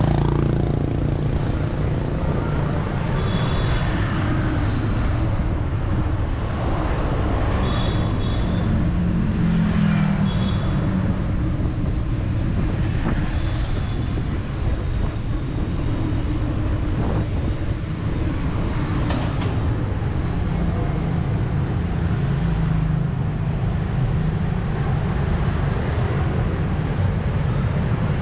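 City street traffic: engines running past in a steady rumble, with a few short high beeps in the first half.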